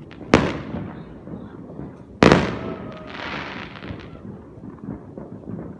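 Fireworks going off: two loud bangs about two seconds apart, each fading out with an echo, followed by about a second of crackling hiss.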